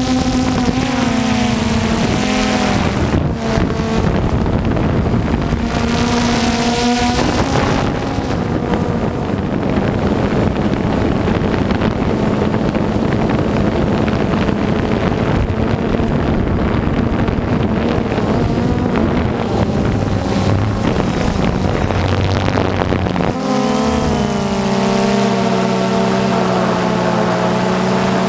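DJI Phantom 2 quadcopter's electric motors and propellers whining, recorded by the GoPro mounted on the drone, the pitch dipping and shifting as it manoeuvres. Wind rushing over the microphone buries the whine through much of the middle, and the whine comes back strong and steady near the end.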